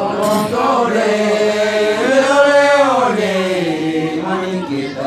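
Men's voices chanting a traditional Manggarai song in long, held notes that glide slowly up and down, with a steady lower note held underneath.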